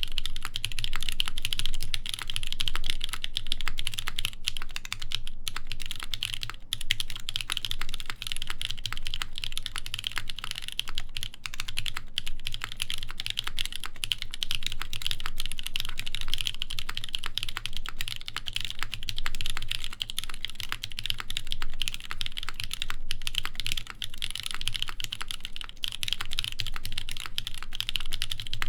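Continuous typing on a Keycult 2/65 mechanical keyboard with lubed NK Cream linear switches, a brass plate and GMK Noire keycaps: a dense, steady stream of keystrokes with a few short pauses.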